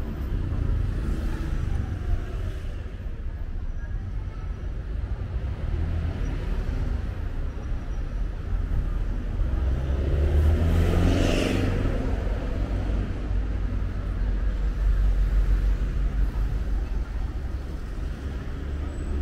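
City street traffic: a steady rumble of car and bus engines, with one vehicle passing close about halfway through, its engine pitch rising and then falling as it goes by.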